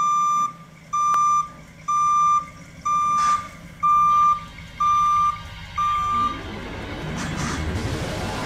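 Back-up alarm of a GMC TopKick medium-duty truck beeping while it reverses: seven loud single-pitch beeps, about one a second, which stop after about six seconds, leaving a low steady rumble.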